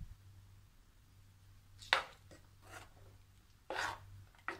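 Spoon stirring thick coconut gravy in a clay pot, scraping against the pot: a few short scrapes, the sharpest about two seconds in, and a longer rub near the end.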